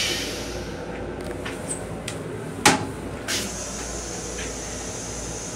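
Black open-front plastic toilet seat in a Metro-North M7 railcar restroom being lifted: a few small clicks, then one sharp knock about two and a half seconds in as it comes up against the wall, and a softer knock just after, over steady background noise.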